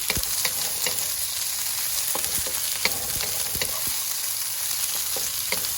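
Vegetables sizzling in hot oil in a frying pan, with scattered clicks and scrapes from a utensil stirring them.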